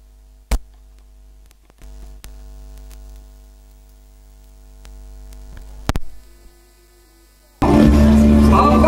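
Low, steady electrical mains hum with a few faint steady tones, broken by a sharp click about half a second in and a couple of clicks around six seconds. Loud music comes in near the end.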